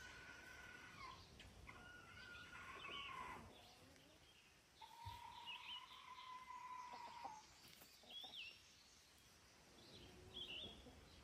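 Young chickens calling faintly: a few short whistling calls, one long steady call starting about five seconds in, and short high chirps near the end, over faint outdoor background noise.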